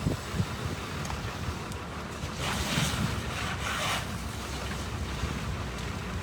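Strong wind buffeting the microphone as a steady low rumble, with a louder gusting hiss swelling for about a second and a half midway through.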